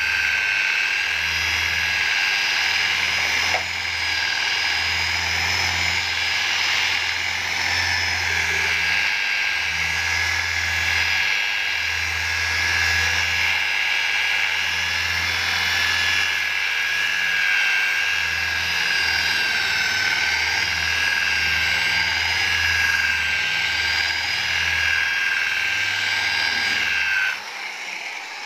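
Handheld electric rotary car polisher running steadily with its buffing pad pressed on the car's painted hood, a high motor whine over a wavering low hum, during a rough cutting pass to take out light scratches. It switches off near the end.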